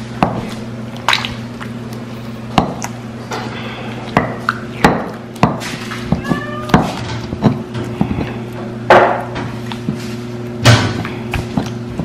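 Basalt molcajete and tejolote grinding peeled tomatoes and serrano chiles into salsa: irregular knocks of stone on stone through the mash, roughly one a second.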